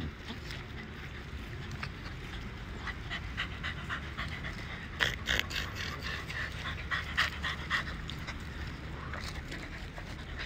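Pembroke Welsh corgi puppies panting while they play, with many short crackles of dry leaves and twigs, busiest in the middle seconds.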